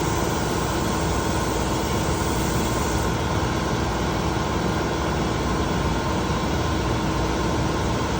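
A machine running steadily: a continuous hum with a constant droning tone and a high hiss that eases slightly about three seconds in.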